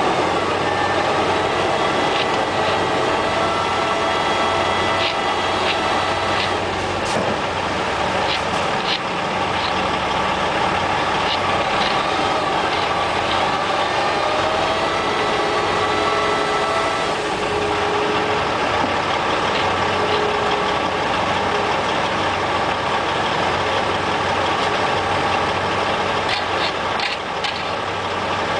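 Heavy diesel engine running steadily, with scattered sharp clicks and a few faint whines over it.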